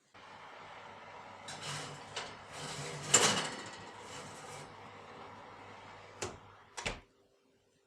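Kitchen handling sounds: a steady low hum under sliding and scraping noises, loudest about three seconds in, then two sharp knocks near the end, after which the hum stops.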